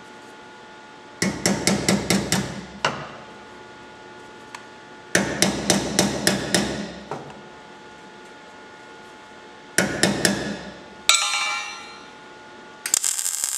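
Ball-pein hammer tapping a freshly tacked sheet-steel patch panel down into a car fender so it lines up: three quick runs of light blows, about eight, eight and four strikes, then one sharper clang. Near the end a MIG welder crackles briefly as a tack is put in.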